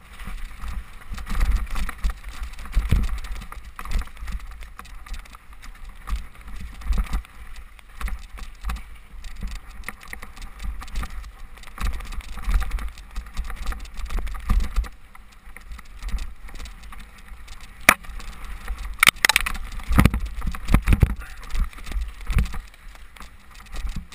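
Specialized Demo 8 I downhill mountain bike rattling and clattering down a muddy trail, heard from a low-mounted camera, with wind buffeting the microphone and sharp knocks from impacts over roots and bumps. A dense cluster of hard knocks comes about four-fifths of the way through.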